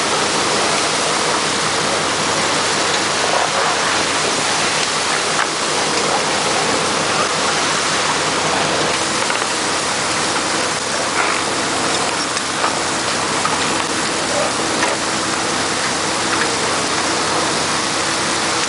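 Steady rush of splashing, churning seawater as a fishing net full of fish is hauled in alongside a fishing boat.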